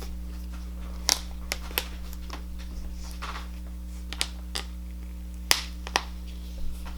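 Clear glitter slime being handled by hand, giving sharp little pops and clicks, about eight of them spaced irregularly, over a steady low electrical hum.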